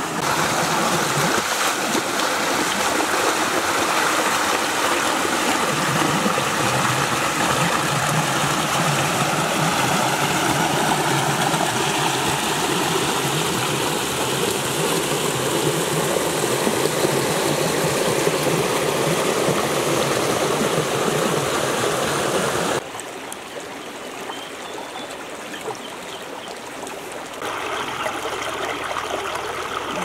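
Stream water rushing and splashing over rocks and small cascades, a steady rush. It drops suddenly to a quieter flow about three quarters of the way through, then swells again a few seconds later.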